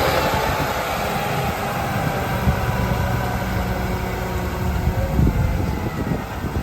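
Heavy farm machinery running steadily during harvest, a low engine hum with a constant drone that slowly eases off.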